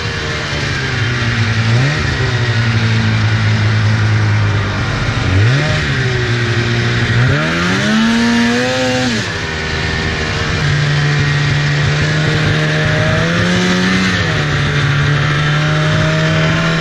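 2004 Polaris RMK 800 snowmobile's two-stroke twin running under way, revving up and easing off several times with the throttle, then holding a steadier pitch near the end. A steady hiss runs over the engine throughout.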